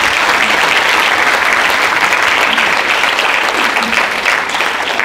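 Audience applauding steadily in welcome for a speaker.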